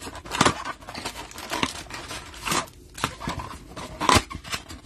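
Cardboard trading-card hanger box being torn open and handled, with the card packs sliding out: irregular scraping, tearing and crinkling of cardboard and pack wrappers, with a sharp crackle about four seconds in.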